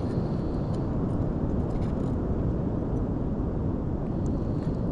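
Steady low rumbling noise of wind and surf at the shore, with a few faint clicks.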